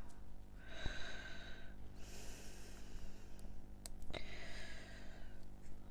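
A person breathing out heavily three times, each breath lasting about a second, with a few faint clicks in between.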